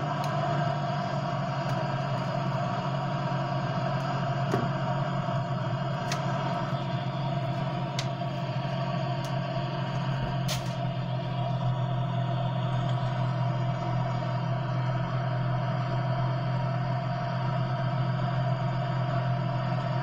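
Steady drone of an aircraft engine and propeller heard inside the cockpit on final approach, with a few faint clicks.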